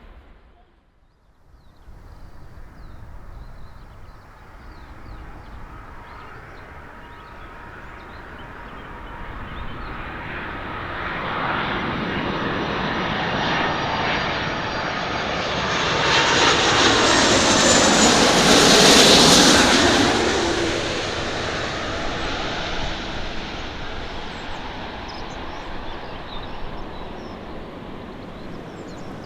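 Jet airliner passing by, its engine roar swelling over about ten seconds to its loudest a little past the middle, with a faint whine, then slowly fading away.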